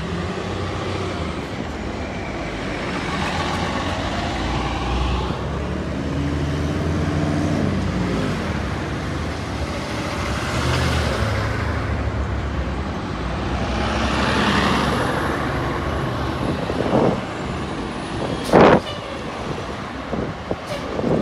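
Transit buses and a delivery truck passing close by, their diesel engines running and swelling as each pulls away. Near the end there is a short, loud burst, the loudest sound in the stretch.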